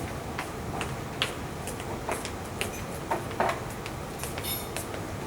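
Light irregular clicks and knocks over steady room noise, typical of a microphone being handled and passed to the next speaker.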